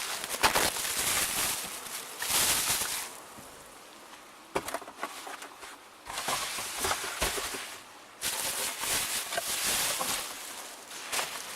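Heavy rain pouring down, the rush swelling and easing in stretches, with a few sharp knocks in the middle.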